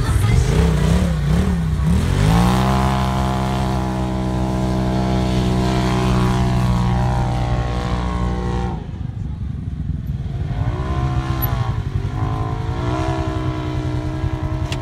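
Dune buggy engine revving hard: its pitch climbs about two seconds in, holds high and steady, then drops off suddenly past the middle. Afterwards a buggy's engine revs rise and fall as it powers up a steep sand dune.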